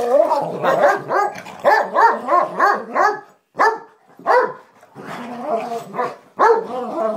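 Dogs play-barking while they roughhouse: a quick run of loud barks, about three a second, then after a short break more barks mixed with longer, drawn-out calls.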